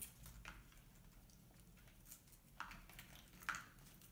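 Near silence: quiet room tone with a few faint, short clicks and rustles of light handling, the clearest about three and a half seconds in.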